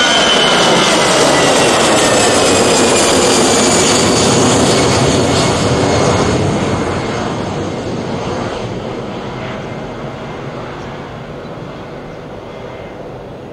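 Airbus A320 jet airliner climbing out after takeoff. It makes a loud jet roar with a high whine that falls in pitch as it passes, then fades away over the second half.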